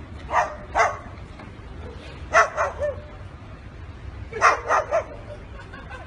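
White cockatoo imitating a dog, barking in short runs of two or three woofs, three runs in all.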